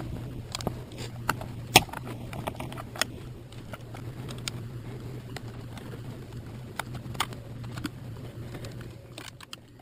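Scattered small clicks and taps as electrical wiring connectors on an outboard engine are worked apart and the wire is pulled free by hand, over a steady low hum. The sharpest click comes just under two seconds in.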